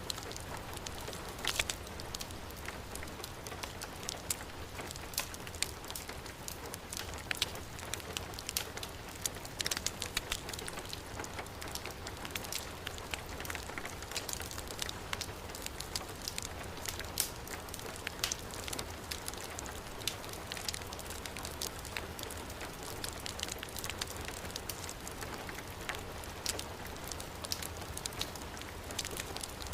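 Heavy rain falling steadily, mixed with a wood fire crackling, its small sharp pops scattered throughout.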